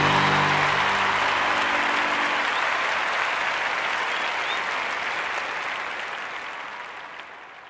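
Audience applause, with a held musical chord underneath that stops about two and a half seconds in; the applause then fades away gradually toward the end.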